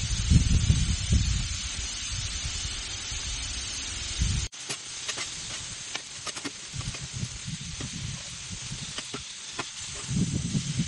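Chicken pieces sizzling on a Blackstone flat-top griddle, a steady hiss. After an abrupt cut about four and a half seconds in, a metal spatula scrapes and clicks against the steel griddle as the pieces are turned. A low rumble runs under the first few seconds and comes back near the end.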